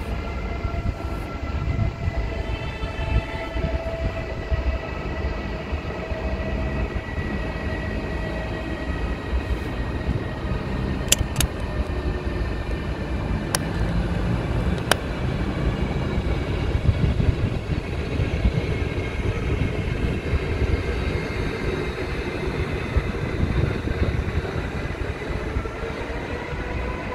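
Train moving through a station: a steady low rumble with a whine that slowly drops in pitch over the first half, and a few sharp clicks near the middle.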